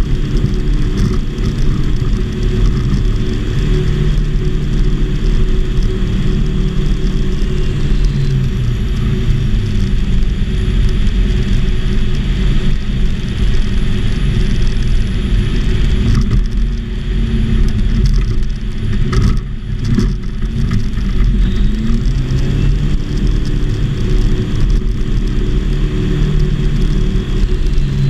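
Engine and propeller of a modified homebuilt Volksplane VP-2 light aircraft running steadily, heard from inside the cockpit.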